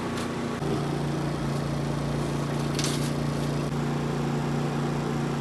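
Steady low mechanical hum from a running machine, which gets stronger and fuller about half a second in.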